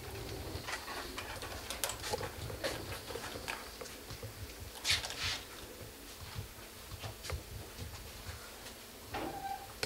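Quiet small-room noise with scattered light taps and rustles, and a short hiss-like burst about five seconds in.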